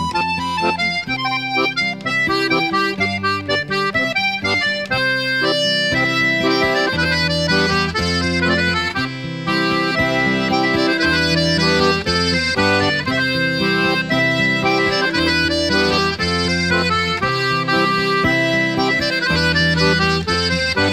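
Instrumental background music, with sustained held notes over a recurring bass line.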